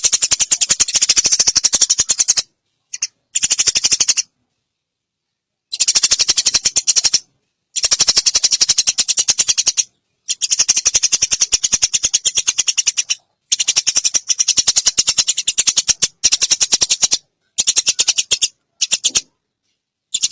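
Eurasian tree sparrow (burung gereja) chirping in fast, rapid-fire runs of high chirps. The runs come in bouts of one to three seconds, cut by short dead-silent gaps, as in an edited tutor recording.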